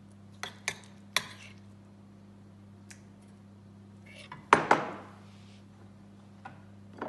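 A metal serving spoon clinking against an enamelled cast-iron pan and a ceramic bowl as food is scooped out. There are three light clicks in the first second or so, then two louder ringing clinks about four and a half seconds in, and one more near the end, over a steady low hum.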